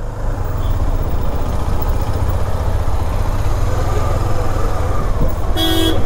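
Low steady rumble of a KTM motorcycle ridden slowly through traffic, with one short vehicle horn toot near the end.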